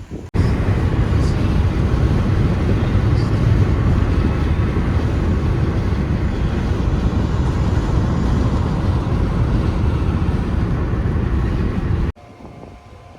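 Steady loud rumbling noise of a vehicle in motion. It cuts in abruptly just after the start and cuts off sharply about a second before the end.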